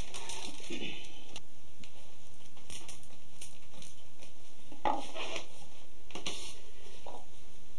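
Split-pine basket splints rustling and scraping in the hands as the bottom of a woven basket is sewn and a fresh sewing strand is threaded in; several short scratchy rustles.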